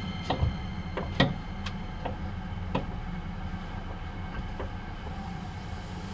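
Hankyu 9300 series electric train running at speed, heard from inside the car: a steady rumble of the wheels on the track with a steady high whine above it. About six sharp clacks from the wheels over the track come in the first three seconds, the loudest a little over a second in.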